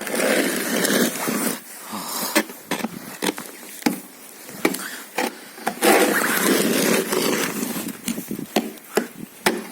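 Dry, deeply frozen snow being scraped and crunched: two long scraping strokes, one at the start and one about six seconds in, with sharp crunches between them.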